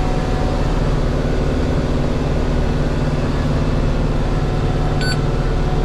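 Oliver 1755 tractor engine running steadily under load with a round baler, heard from inside the tractor's cab. A brief high beep sounds near the end.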